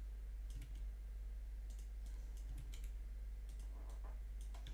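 Irregular clicks of a computer keyboard and mouse, a few at a time, over a steady low electrical hum.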